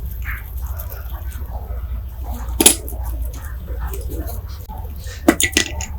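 Metal parts of an MP5 being handled, over a steady low hum: one sharp clink about two and a half seconds in, then a quick run of several clinks near the end.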